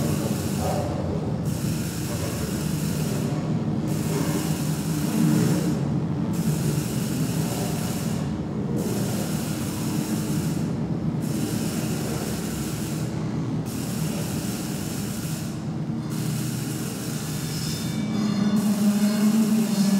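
Experimental electronic noise music: a dense low drone with hiss above it, its high end cutting out briefly about every two and a half seconds in a steady pulse. A brighter pitched hum comes in near the end.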